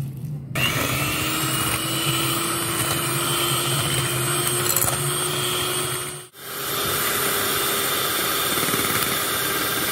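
Electric hand mixer running, its twin beaters whipping cream in a glass bowl. The motor starts about half a second in with its pitch rising slightly, breaks off for a moment just past six seconds, then runs on steadily.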